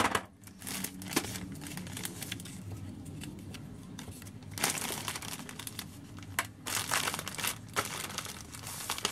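Cellophane treat bag and plastic candy wrappers crinkling as they are handled, with scattered light clicks and taps and a denser rustle about halfway through.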